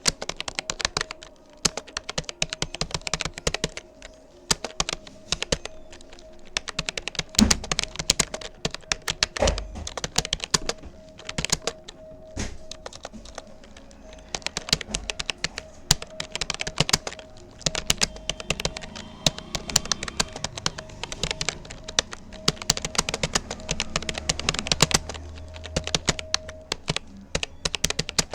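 Rapoo computer keyboard being typed on continuously: a dense, irregular run of key clicks with a few heavier thumps, over a faint steady tone.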